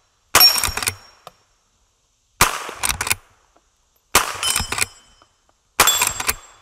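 Four shots from a Henry Frontier lever-action .22 rimfire carbine, spaced about 1.7 seconds apart. Each shot is followed by the brief ring of a steel plate target.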